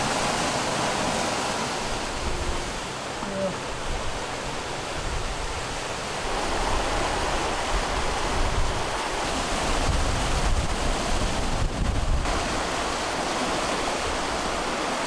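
Rushing, splashing water of a Leopard 45 catamaran's wake and hulls as it surfs down swells at about 10 knots in strong wind, with wind gusts on the microphone adding a low rumble from about two-thirds of the way in.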